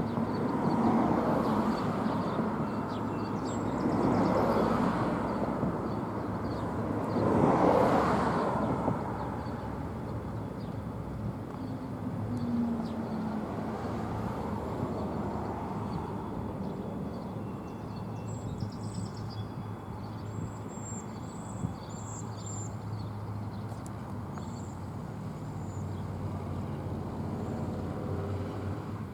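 Outdoor road traffic: passing vehicles swell and fade, loudest about four and eight seconds in, then a steadier background hum with faint short high chirps in the second half.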